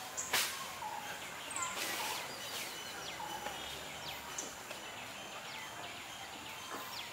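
Birds calling from the surrounding trees: a string of short chirps sliding down in pitch, about two a second, over steady outdoor background noise. A single sharp click comes just after the start.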